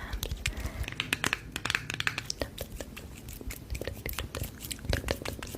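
A dense run of irregular soft clicks, crinkles and taps, like something being handled close to a microphone.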